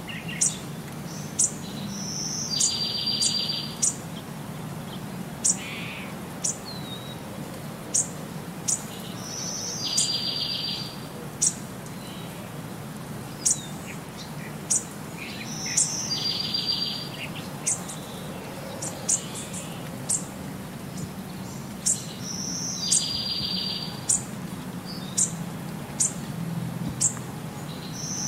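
Birds singing: many short, sharp high chirps and a buzzy trill about a second long that comes back every six or seven seconds, over a faint steady low hum.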